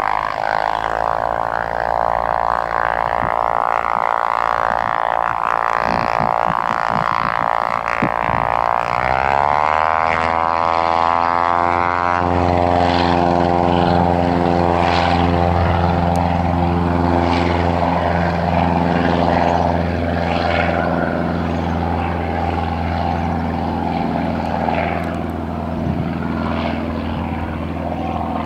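Cessna 172RG Cutlass's four-cylinder Lycoming engine and propeller running. The engine note rises in pitch over a few seconds, starting about nine seconds in, as power comes up. It then holds steady, a little louder, with a deep drone.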